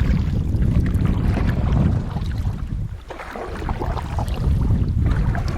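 Wind buffeting the microphone in a low rumble, easing briefly about three seconds in, with light water crackle from a canoe being paddled.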